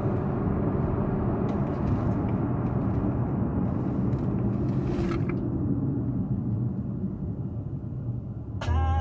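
Steady low rumble of a car, heard from inside the cabin. Music starts near the end.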